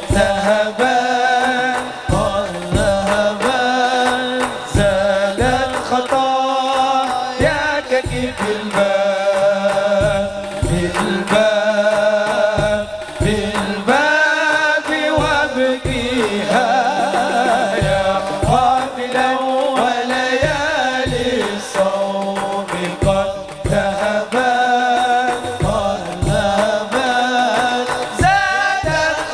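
Live qasidah music: male voices singing an Arabic sholawat in a melismatic style, with hand drums keeping a steady beat.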